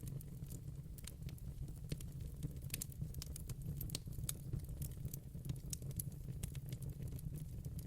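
Fireplace fire crackling, with frequent sharp pops and snaps over a steady low rumble of the flames.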